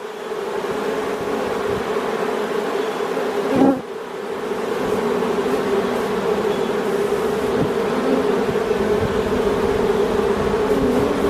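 A swarm of honeybees buzzing steadily, the hum of many bees close by as the swarm pours into the hive to join its caged queen. A brief thump about four seconds in.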